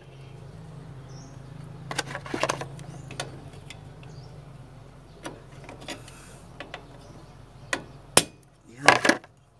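Scattered metal clicks and clinks from hand tools and drum-brake shoe hardware as the last brake spring is worked into place, with two sharper clicks near the end. A steady low hum runs underneath and stops about eight seconds in.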